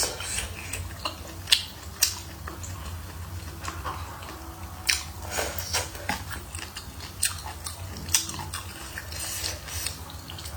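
Close-up mouth sounds of someone eating hotpot food: chewing and biting, with irregular wet clicks and crackles, the sharpest about one and a half to two seconds in. A steady low hum runs underneath.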